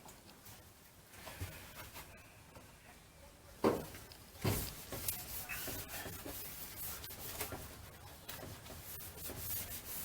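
Hands rubbing and wiping along the rubber seal of an open boat hatch, a scratchy friction sound, with two sharp knocks a little before the middle.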